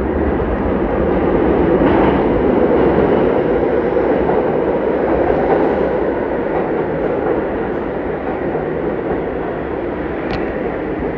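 New York City subway train of stainless-steel R62A cars running into an underground station along the platform, a steady rumble of wheels on rail. It is loudest about two to five seconds in and eases a little after that.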